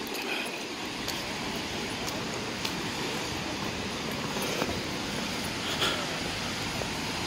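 Steady hiss of rain and traffic on wet city streets, with a few faint ticks.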